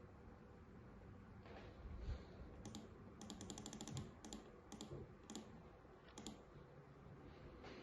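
Faint clicking, like keys being typed: a quick run of about ten clicks a little after three seconds in, then a few single clicks.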